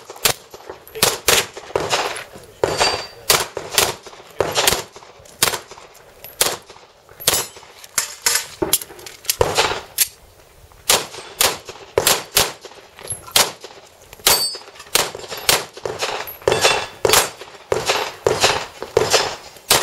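Handgun shots fired in rapid pairs and short strings, dozens of sharp cracks with brief pauses between groups as the shooter moves between targets.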